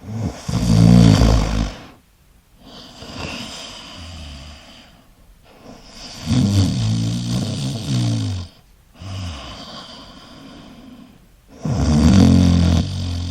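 A person snoring: three loud, low-pitched snores about five to six seconds apart, each followed by a softer breath out.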